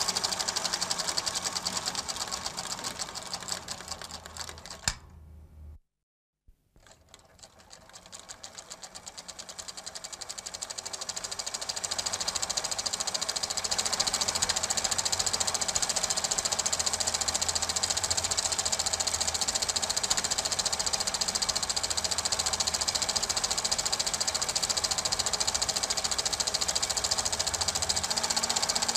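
Super 8 film projector running with a rapid, even mechanical clatter. It fades away and drops out for about a second some six seconds in, then builds back up to a steady clatter over the next several seconds.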